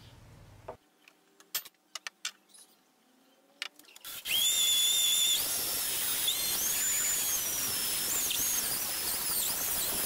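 A few light clicks, then about four seconds in a drill press starts boring into thick steel plate with a twist drill bit: a steady hiss of cutting with a high squeal that wavers in pitch.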